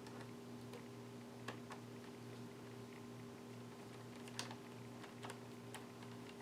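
Faint, scattered small clicks and taps from handling laptop parts and screws, over a steady low hum.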